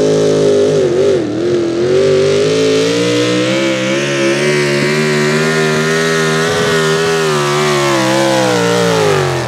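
Pro stock 4x4 pulling truck's engine at full throttle as it hauls the weight-transfer sled: the revs sag briefly about a second in, then hold high with a wavering pitch, and drop away near the end as the pull finishes.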